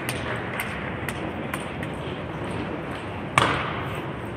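Celluloid-type table tennis ball making a few light ticks about half a second apart, then a sharp loud crack of a paddle striking the ball about three and a half seconds in as a point gets under way.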